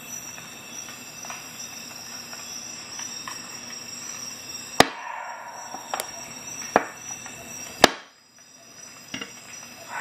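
Sharp metallic clicks of the folding tools of a Ratnik 6E6 Russian army multi-tool snapping into place as they are worked by hand: four loud clicks about a second apart from about halfway in, then a fainter one near the end.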